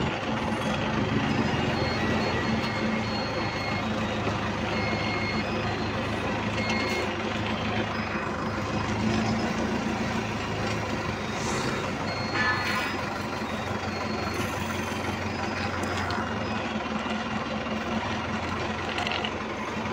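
Forklift engine running steadily while the forklift reverses, its reversing alarm giving short high beeps on and off.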